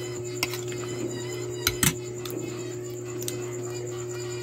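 Eating sounds from a plate of shrimp and string beans: a few sharp clicks and clinks, the loudest a quick double clink a little under two seconds in, over a steady low hum.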